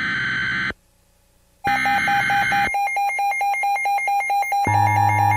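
Emergency Alert System SAME header: two bursts of buzzing digital data tone, each about a second long with a one-second gap between them, announcing an incoming weather warning. Electronic music with a quick pulsing tone comes in under the second burst, and deep bass joins near the end.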